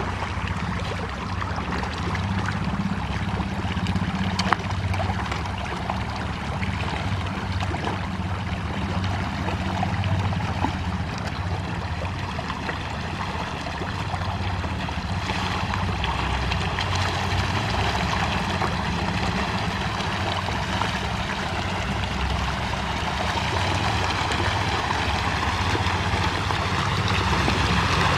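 Mass of hybrid magur catfish feeding on floating pellets at the pond surface, making continuous splashing and gurgling, with a steady low hum underneath.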